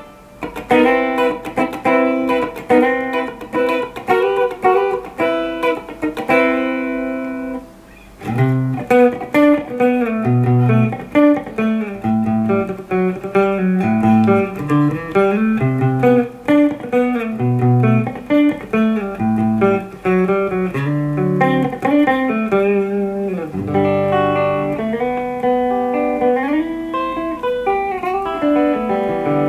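A 2019 Fender Player Series Stratocaster electric guitar played through an amp on its middle single-coil pickup with a clean tone. Strummed chords come first, then a short break about eight seconds in, then a picked line mixing low notes and chords, with a few sliding notes near the end.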